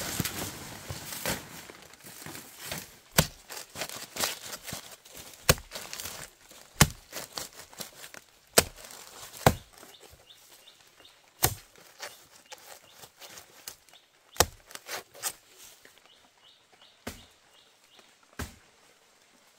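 A series of sharp chopping or striking blows, about ten, irregularly spaced one to three seconds apart.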